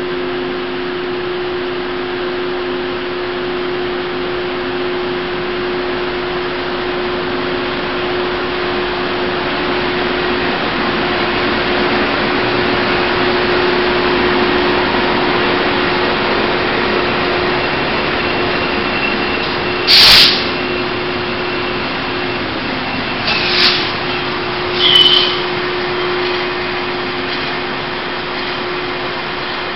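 Taiwan Railways R40 diesel-electric locomotive hauling a parcel train through an underground station: a steady engine drone with a low hum, swelling a little as it passes. About two-thirds through comes a loud, sharp noise, then two shorter ones a few seconds later, the last with a brief high squeal.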